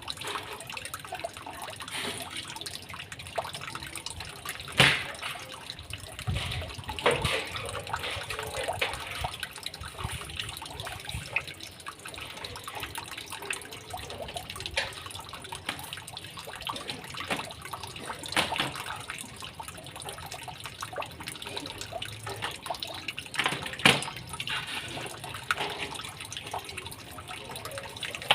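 Resun Penguin 4500 submersible pond pump running in water after a repair to its broken motor cable, its outflow splashing and trickling steadily. A few sharp knocks stand out, four in all.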